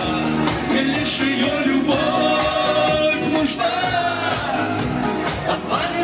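Male vocalist singing a pop song live into a handheld microphone, the voice wavering on held notes, over a keyboard accompaniment with a steady beat.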